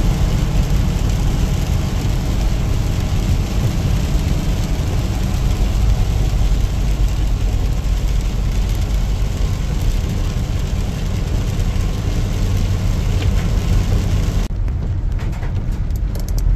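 Road noise inside a moving car's cabin: a steady low rumble with an even hiss of tyres on wet pavement. Near the end the hiss cuts off suddenly, leaving just the low rumble.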